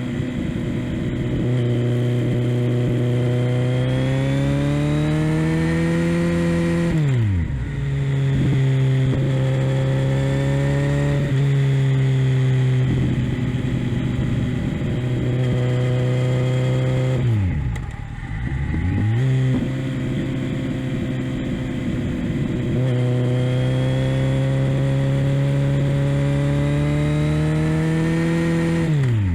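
Kawasaki Z900's inline-four engine running through a Leo Vince LV-10 exhaust, holding fairly steady revs. Its pitch drops sharply and climbs back three times: about seven seconds in, around eighteen seconds in, and at the very end.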